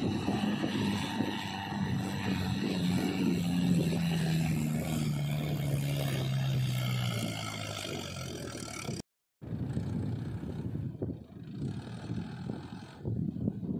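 Mahindra 585 tractor's diesel engine pulling up a sand dune, its engine speed falling steadily as it climbs under load. About nine seconds in the sound cuts out briefly, and a fainter, uneven engine sound follows.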